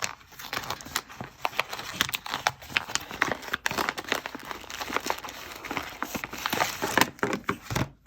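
Packaging being torn open and crinkled by hand: an advent calendar parcel unwrapped, a dense run of crackling and rustling.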